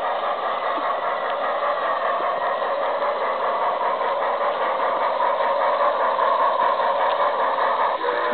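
Garden-scale model train running along its track: a steady mechanical running noise.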